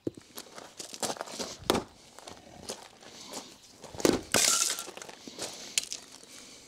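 A small axe striking a hazel log on a chopping block: several sharp knocks, the loudest under two seconds in and about four seconds in, the latter followed by a brief rattle. The little axe is not splitting the hazel.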